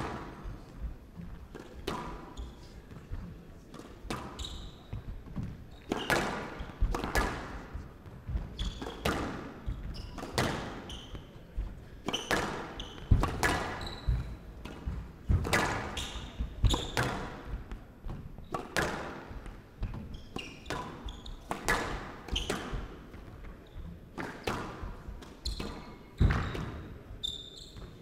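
Squash rally: the ball struck hard by the rackets and smacking off the court walls, a quick succession of sharp hits about one or two a second.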